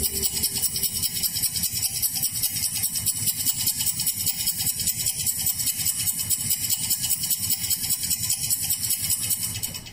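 Rapid, even mechanical rattling, about six or seven pulses a second with a hissy top, cutting off suddenly near the end.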